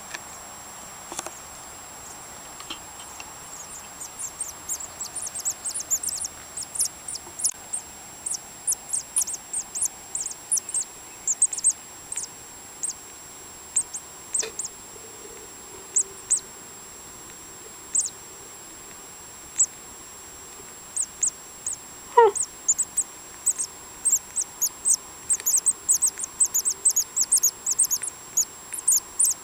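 Nestling birds cheeping: many short, very high-pitched peeps coming in bouts, over a steady high tone. One louder, lower squeak slides in pitch about two-thirds of the way through.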